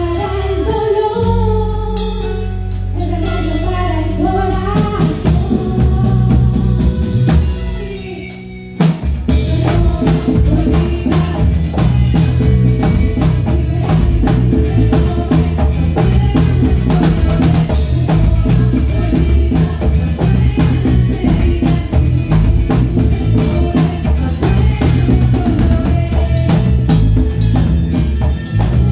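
A live band playing through a PA sound system: a singer over sustained low notes for the first several seconds, then after a short drop about eight seconds in, the band comes back in with a busy drum-led instrumental section.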